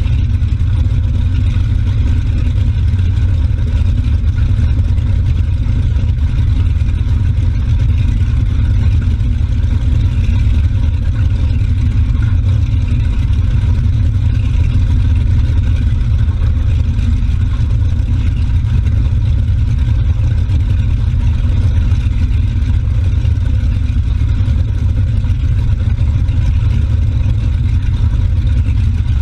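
Motorboat under way, its engine giving a constant low rumble under the rush of the churning wake behind the stern; the engine is, in the owner's words, running like a top.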